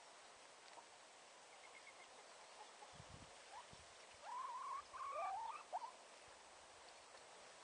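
Domestic hens giving a few short, wavering calls about halfway through, over faint outdoor hiss, with a low bump just before them.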